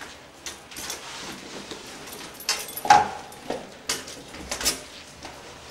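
Metal locker being handled and its door pushed shut: a series of knocks and clanks, the loudest about three seconds in with a brief metallic ring.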